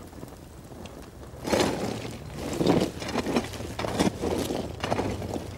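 Lumps of burnt lime being scooped and moved, heard as irregular crunching and scraping in several bursts that begin about a second and a half in.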